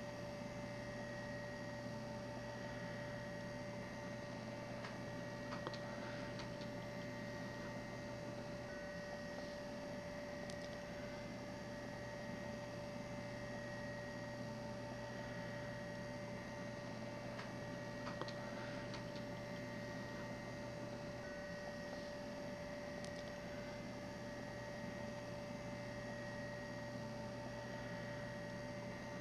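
Steady electrical hum with a few faint high steady tones, and now and then faint scratches and taps of a pen drawing on a paper strip.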